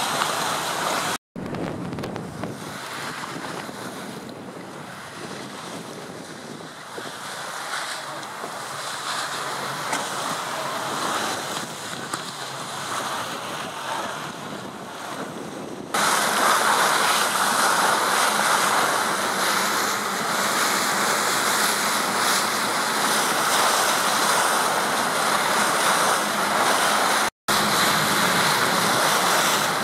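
Wind blowing across the microphone over choppy water and waves. The noise drops out twice, briefly, about a second in and near the end, and turns louder about halfway through.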